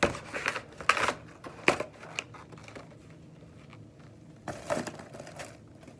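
Nail polish bottles and their packaging box being handled. There are a few sharp clicks and knocks in the first two seconds as the bottles are put back in, then a short rustle and clatter of the box about four and a half seconds in.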